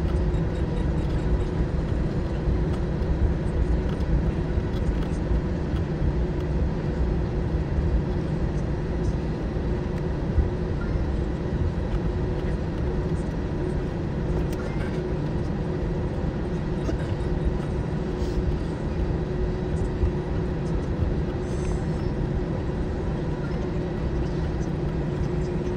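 Airbus A320 cabin noise while taxiing: a steady low rumble from the rolling aircraft with the engines' even hum running under it.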